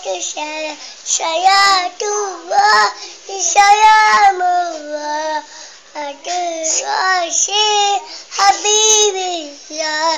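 A two-year-old child singing a selawat, an Islamic devotional chant, in a high voice, in short phrases with brief pauses between them.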